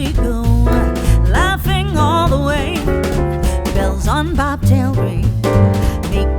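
Music: a song with a wavering, vibrato sung melody over changing bass notes and drums.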